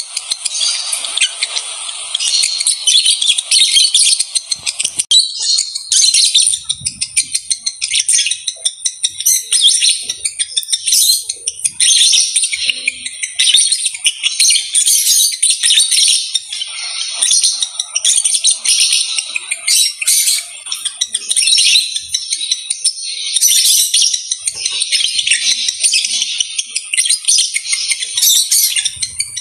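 Lovebird chattering in a long, rapid run of shrill, high twittering that swells and breaks off every second or so: the breeding chatter of lovebirds ready to mate. A thin, steady high tone runs underneath.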